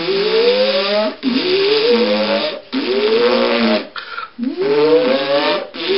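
A person voicing a time machine's whirring start-up as a mouth sound effect: four buzzy, rising whooshes, each about a second long, with short breaks between them.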